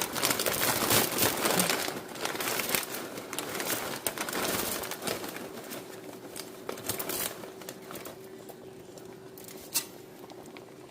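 Crinkling and crackling as dry pancit canton noodles and their plastic packaging are handled, dense at first and thinning out over the second half, with one sharp click near the end.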